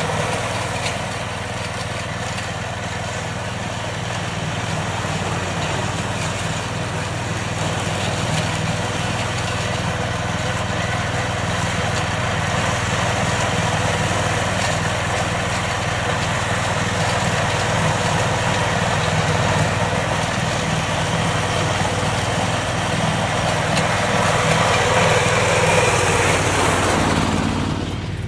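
Kummucit KM840/14 ride-on meadow mower running steadily while its front cutter cuts through tall grass. It grows louder near the end, then falls away.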